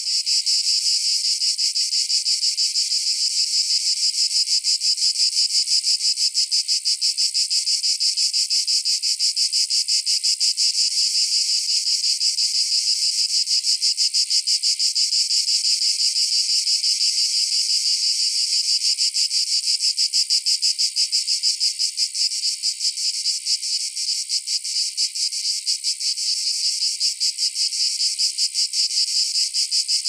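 Cicadas calling: a steady, high-pitched, rapidly pulsing buzz that keeps on without a break.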